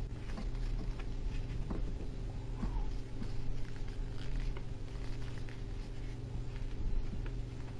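Paper rustling and crinkling in the fingers as an origami paper airplane's folds are worked and creased, with scattered small irregular clicks. A steady low hum runs underneath.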